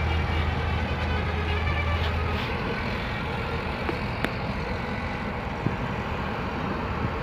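Road and engine noise inside a moving car's cabin: a steady rumble and tyre hiss, with a low hum that drops away a couple of seconds in and a single sharp click near the middle.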